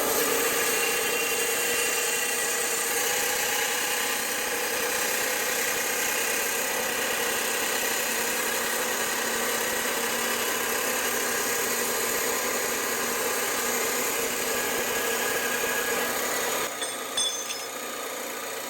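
Electric power tool cutting through a strip of steel, a loud steady grinding noise. Near the end it drops to a lower level.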